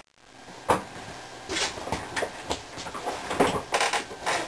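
Irregular knocks, shuffles and rustles of someone moving about a room, about eight short noises spread unevenly.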